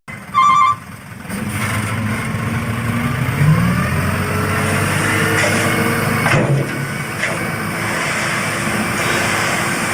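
A short chime, then a truck engine running steadily with some shifts in pitch.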